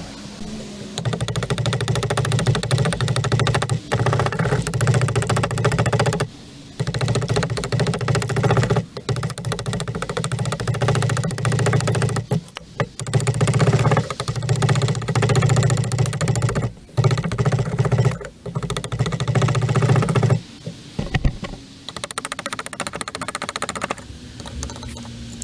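A small power tool cutting into an ash handle blank, running in bursts of a few seconds with short pauses between them, and stopping about twenty seconds in.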